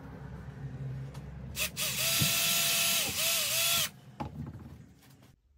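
Cordless drill spinning up about one and a half seconds in and drilling through a rubber mounting bracket for about two seconds. Its pitch dips twice before it stops.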